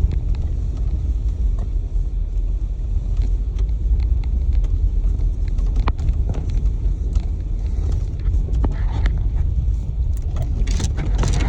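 Inside a Jeep driving over ice-crusted snow: a steady low rumble of tyres and engine, with scattered sharp clicks and a brief louder hiss near the end.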